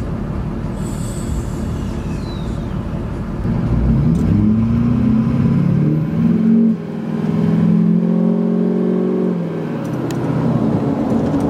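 2004 Duramax LLY turbo-diesel V8 heard from inside the cab, pulling hard under acceleration through its 5-inch exhaust. The engine note climbs, drops briefly about halfway through at a gear change, climbs again, then eases off near the end.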